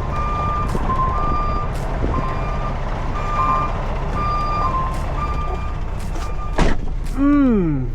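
Backup alarms beeping about once a second at two slightly different pitches while a semi truck reverses to a loading dock, over the truck's low steady engine drone. A short sharp burst comes about six and a half seconds in, then a falling, voice-like moan near the end.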